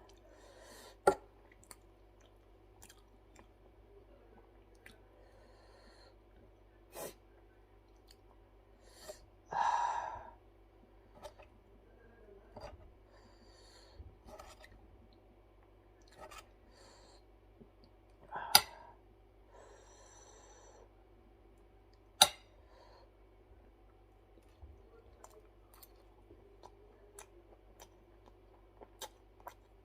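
A person eating, with quiet chewing and mouth sounds. There are a few sharp clicks, and a couple of short, louder breathy gasps, about a third of the way in and again past halfway, in reaction to spicy food.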